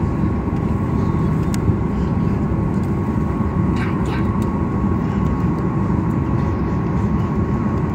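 Cabin noise of a Boeing 737-800 taxiing: a steady rumble from its two CFM56-7B engines at taxi power, with a thin steady whine over it, heard from inside the cabin.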